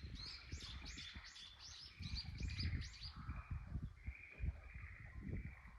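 A bird singing a quick run of repeated high, arching notes, about three a second, which stops a little after three seconds in. Under it is a steady pulsing trill from an animal chorus, with low buffeting noise.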